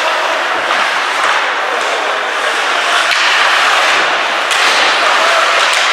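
Ice hockey play in a rink: a steady hiss of noise with several sharp cracks of impacts, the loudest about four and a half to five seconds in.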